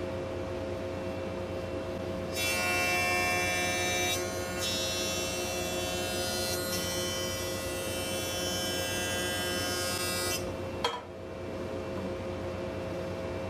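Electric power tool motor running with a steady hum. From about two seconds in, a much louder hiss joins it for some eight seconds, with a brief dip partway through, then cuts off. A click follows, and the motor hums on.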